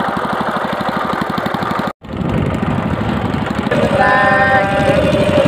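Small boat's outboard engine running steadily with a rapid, even firing beat. The sound drops out for an instant about two seconds in. From about three and a half seconds a steady tone with several pitches sounds over the engine twice.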